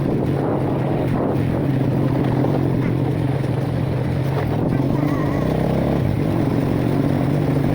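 An engine running at a steady speed, a continuous low hum with an even rush of noise over it.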